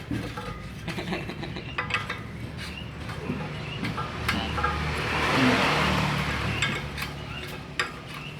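A motor running steadily, with a swell of louder rushing noise past the middle that rises and fades, and scattered short clicks.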